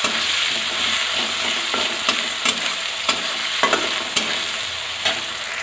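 Chopped onions sizzling in hot oil in a metal kadhai. A spatula clicks against the pan several times as they are stirred.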